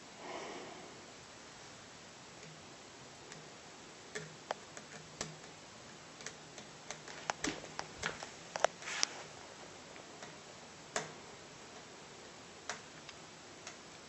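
Scattered sharp clicks and light taps as fingers handle an Acer Aspire One D260 laptop's LCD panel and plastic screen frame during reassembly, after a short rustle at the start. The clicks bunch together in the middle and thin out toward the end.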